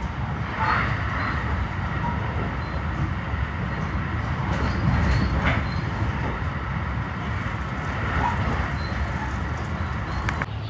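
JR West 223 series 5000-subseries electric train running, a steady low rumble with a few light clicks about five seconds in.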